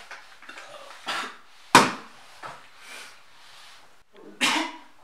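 A few short knocks and handling noises, the loudest a sharp knock a little under two seconds in.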